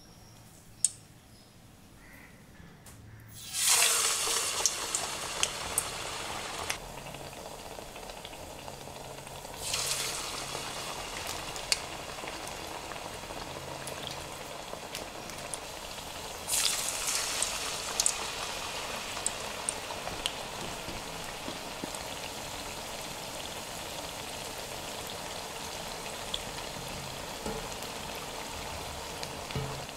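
Pepper vadas deep-frying in hot oil in a kadai. The sizzle starts suddenly about three and a half seconds in and surges twice more, about ten and sixteen seconds in, as more vadas go into the oil. It then settles into a steady bubbling sizzle with scattered pops.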